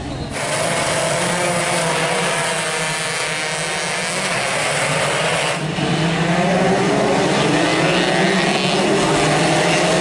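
A pack of standard two-stroke underbone racing motorcycles revving together on the start grid, many engines at once, then pulling away in a louder mass of rising engine notes about halfway through.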